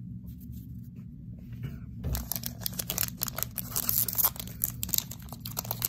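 Foil booster pack wrapper crinkling and tearing open in the hands: a dense run of sharp crackles starting about two seconds in.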